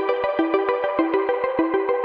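Electronic background music: a repeating synthesizer figure over a steady, quick beat.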